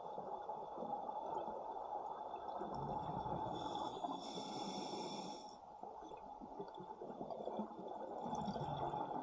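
Scuba diver breathing through a regulator underwater: a hissing inhale about three and a half seconds in, lasting about two seconds, and the low rumble of exhaled bubbles.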